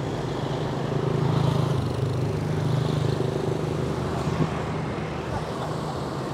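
Steady low hum of traffic and road noise, with one short knock about four seconds in.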